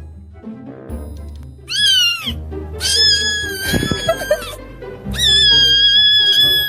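A cat meowing three times, high-pitched: a short bent meow, then two long drawn-out ones, over background music with a steady low beat.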